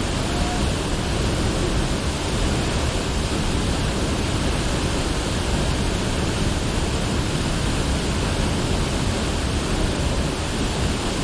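Steady, even rush of falling and running water from the Rio Celeste waterfall and river.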